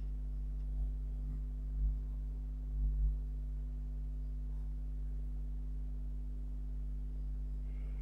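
Steady low electrical mains hum, with a few faint low thumps in the first three seconds.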